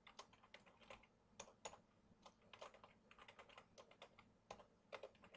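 Computer keyboard typing: faint, quick, irregular keystrokes.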